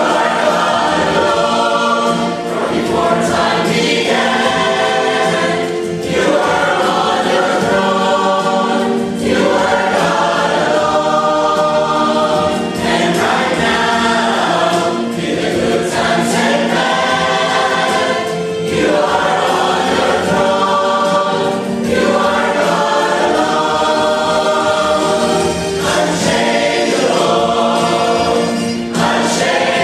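Mixed church choir of men and women singing a hymn in held chords, phrase after phrase, each lasting a couple of seconds.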